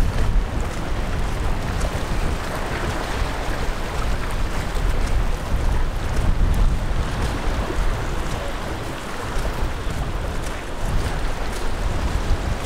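Wind buffeting the microphone in uneven gusts over the steady wash of the sea.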